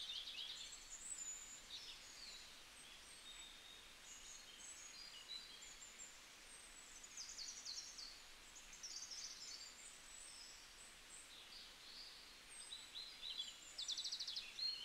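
Faint birdsong: many short high chirps and quick trills from birds, scattered throughout over a faint steady hiss.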